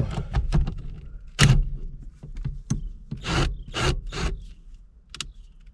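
Ratchet wrench rasping in several short strokes while being worked on the steering wheel removal, set to loosen instead of tighten.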